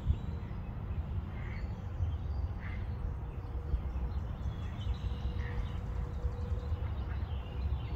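Low, uneven rumble of wind buffeting the phone's microphone, with a few faint short bird calls about a second and a half, two and a half, and five seconds in.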